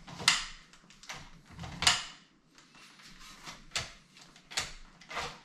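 Hard clacks and scrapes of an adjustable dumbbell's handle being pushed into its stack of weight plates in the base, two louder clacks in the first two seconds, then a few lighter knocks.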